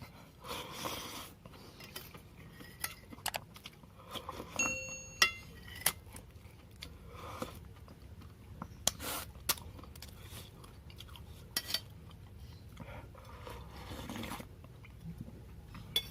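A person eating noodle soup: scattered clinks of spoon and fork against the bowl, with chewing in between. A little under five seconds in, one strike rings briefly on the bowl.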